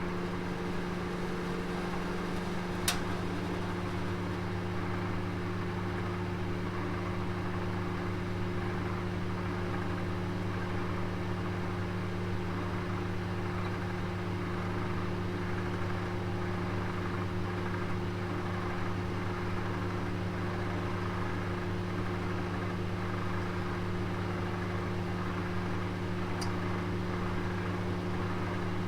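Oven running with a steady low hum and hiss, with a single sharp tick about three seconds in.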